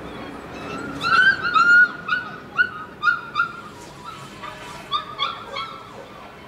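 Dogs whining: a run of short, high-pitched cries, two or three a second, starting about a second in and loudest at first.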